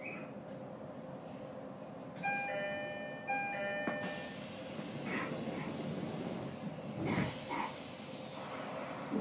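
A short electronic chime tune plays in two quick phrases about two seconds in, over the steady hum of an E129-series electric train standing at a platform. After it comes a high hiss with a slowly falling whistle, swelling again near the end.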